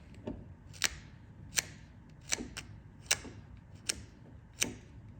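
Razor blade scraping across cured JB Weld epoxy on a steel propeller shaft, in short, sharp strokes repeated evenly a little more than once a second, shaving down the high spots of the patch.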